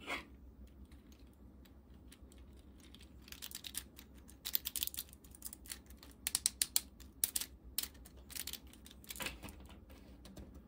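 3D-printed plastic ratchet joints of an articulated robot figure clicking as its limbs and head are moved. The clicks come in quick, irregular runs.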